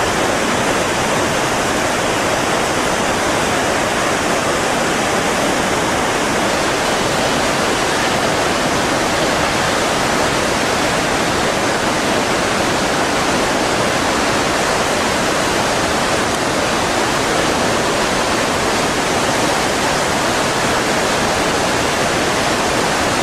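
Fast-flowing water rushing steadily and loudly, as in a flood torrent, with a faint high whine through roughly the first six seconds.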